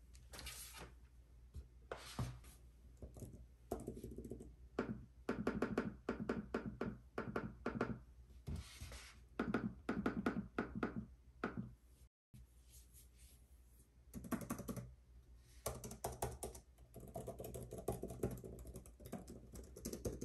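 Typing on the keys of an Apple Magic Keyboard for iPad Pro, in quick runs of light key clicks with short pauses between them. There are also a couple of brief brushing sounds near the start.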